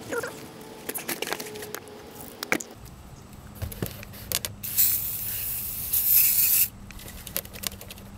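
WD-40 aerosol can sprayed onto steel studs and nuts: a short spurt, then a loud hiss lasting about two seconds, about five seconds in. Before it, paper towels rustle and crinkle as they are handled.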